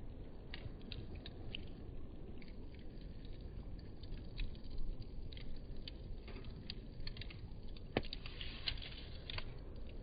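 Campfire crackling: irregular snaps and pops of burning wood over a low rumble, with one sharper pop about eight seconds in.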